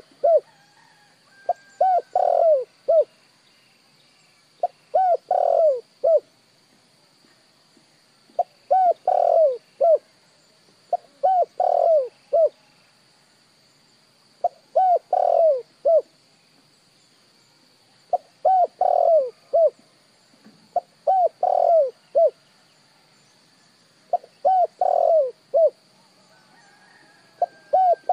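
Spotted dove cooing: a short phrase of three or four notes, repeated every three seconds or so, about ten times.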